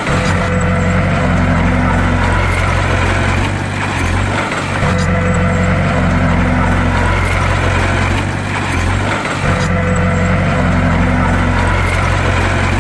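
Bulldozer's diesel engine running steadily, its sound going through the same cycle about every four seconds.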